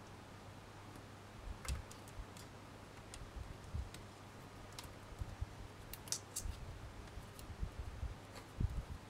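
Faint, scattered clicks and ticks of thin jewellery wire being wrapped by hand around a wire frame, the wire catching and tapping against the frame, over a low steady hum.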